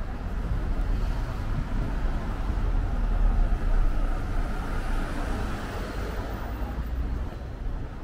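Street traffic noise: a steady low rumble that swells to a peak about three seconds in and then eases, as a vehicle passes.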